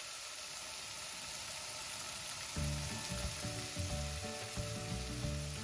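Raw mango pieces and spices sizzling in hot coconut oil in a pan, a steady hiss. Background music with low notes comes in about halfway through.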